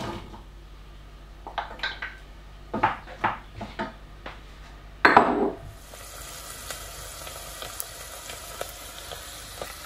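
Diced onions frying in melted butter in a stainless steel saucepan: a spoon knocks and scrapes in the pan several times in the first half, with a louder clatter about halfway, then a steady sizzle with faint crackling.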